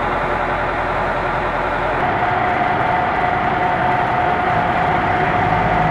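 Steady running engine-like noise with a held mid-pitched tone coming in about two seconds in.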